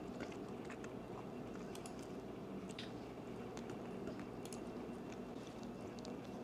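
Wet mouth sounds of sucking and biting the soft pulp of a ripe mango: scattered faint clicks and smacks over a low steady hum.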